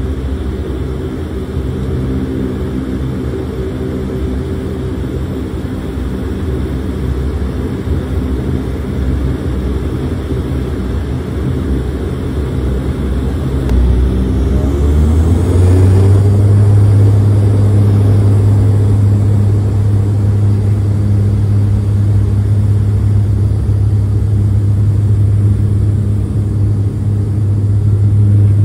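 Dash 8 Q400's turboprop engines and six-bladed propellers heard from inside the cabin beside the wing: a steady drone, then about halfway through the pitch rises and the sound grows louder into a strong, steady low hum as power comes up for the takeoff roll.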